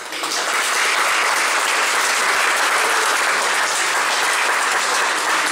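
A room full of people applauding: a dense, steady mass of hand claps that breaks out all at once.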